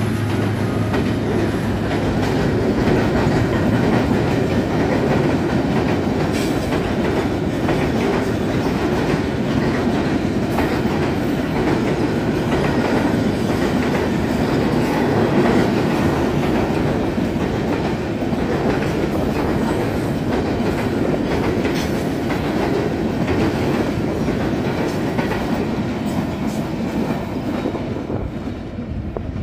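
Freight train wagons rolling past at speed: a steady rumble of steel wheels on rail with scattered clicks and clatter from the rail joints. It fades a little near the end as the last wagons pull away.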